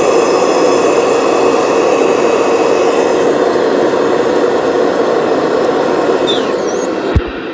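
Kirby upright vacuum's motor and fan running steadily at full speed, a loud even whine. Near the end a single sharp knock, after which the sound drops away suddenly.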